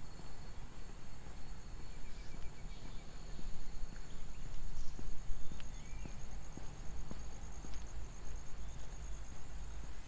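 Insects trilling steadily and high-pitched in roadside vegetation, with a few short bird chirps near the middle, over a low steady rumble.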